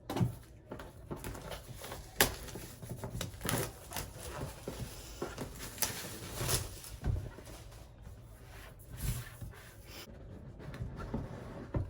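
Packaging and parts being handled: irregular rustling with scattered light clicks and knocks, the sharpest about two seconds in and again past the middle.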